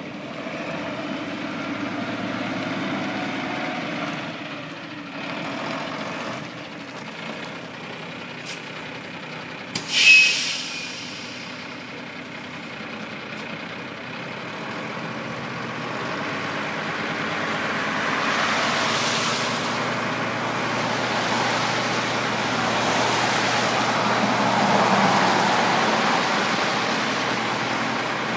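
1988 Mack MS300T Mid-Liner cab-over dump truck's diesel engine running as the truck drives and turns, then a short, loud air-brake hiss about ten seconds in. From about sixteen seconds on, the engine runs louder as the hydraulic hoist raises the dump bed.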